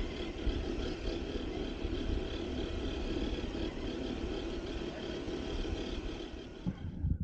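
Steady whine and rumble of a scale RC crawler truck's electric motor and gearbox, picked up by the camera mounted on the truck as it drives over grass; it cuts off abruptly near the end.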